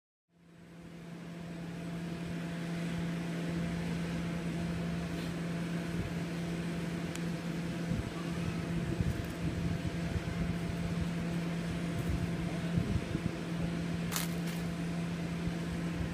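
Steady low machine hum, with irregular low rumbles through the middle and a pair of sharp clicks near the end.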